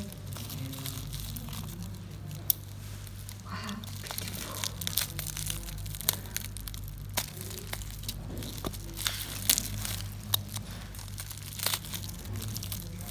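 Plastic bubble wrap crinkling and crackling as a utility knife cuts it and fingers pull it apart, with scattered sharp clicks and several louder snaps.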